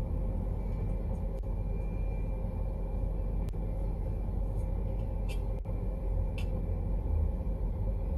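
Steady low rumble like a moving vehicle's road and engine noise, with a few faint clicks.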